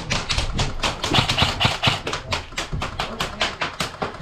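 Airsoft gun firing a rapid string of shots, about six or seven sharp cracks a second.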